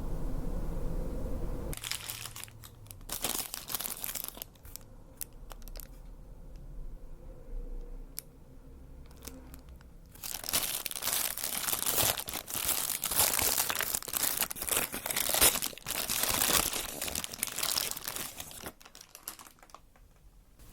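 Paper fast-food wrapping crinkling and rustling as it is handled and unwrapped, in scattered bursts and then a long stretch of steady crinkling. A low rumble of background noise comes before it for the first second or two.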